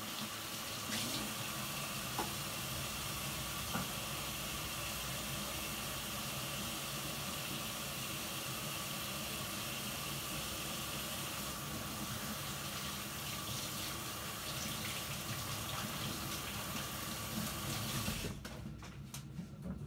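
Tap water running steadily into a sink, shut off suddenly near the end.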